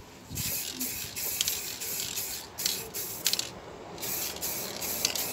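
Aerosol can of satin black spray paint hissing in several bursts with short breaks between them.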